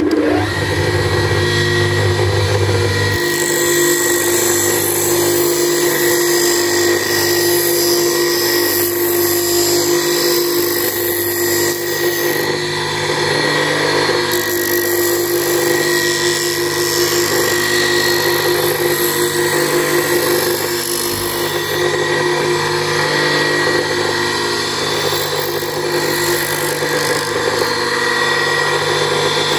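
Bench grinder running steadily with a constant whine, its wheel grinding the edges of small 6 mm MDF pieces held against it to round and true them.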